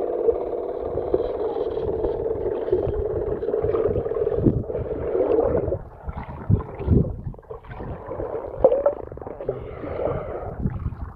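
Revell Skipjack radio-controlled model submarine's electric drive heard through the water as a steady whine that cuts off about six seconds in. Muffled underwater gurgles and low knocks follow.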